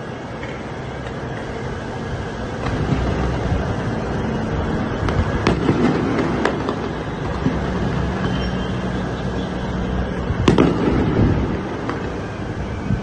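Fireworks exploding, a string of sharp bangs over a continuous din, the loudest bang about ten and a half seconds in.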